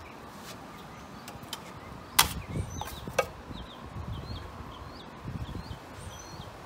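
Steel drywall taping knife spreading and scraping joint compound across a wall patch, with a few sharp clicks, the loudest about two seconds in. Birds chirp faintly in the background.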